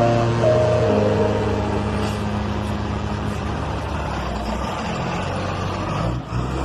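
Motor vehicle engine running steadily, with sustained music notes fading out about a second in.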